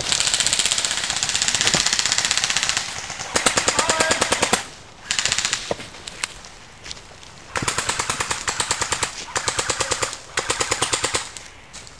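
Airsoft guns firing on full auto in about six bursts of rapid, evenly spaced shots. The first burst is the longest, nearly three seconds, and the later ones are shorter with brief pauses between them.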